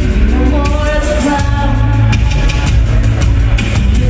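Loud live band music: a woman singing into a microphone over a steady drum beat, electric guitar, keyboards and heavy bass, heard from the audience.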